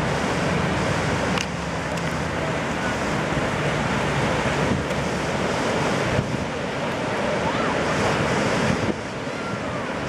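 Ocean surf breaking and washing in, with wind on the microphone. The noise shifts abruptly a few times, about a second and a half in, around six seconds and near nine seconds.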